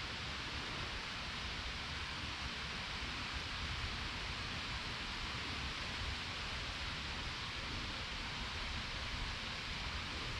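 A steady, even hiss of outdoor background noise with a faint low rumble and no distinct events.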